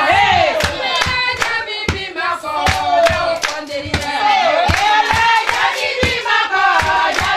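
A group of women singing together, with steady hand clapping about three claps a second.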